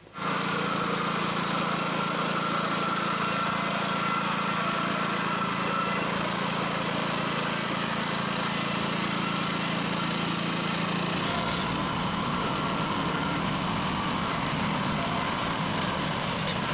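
Engine-driven sawmill running steadily while edging lumber. A low hum in its sound drops away about eleven seconds in.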